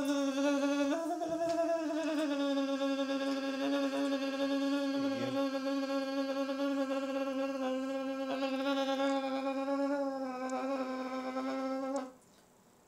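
A person's voice holding one long sung or hummed note for about twelve seconds, with a slight waver, then cutting off suddenly.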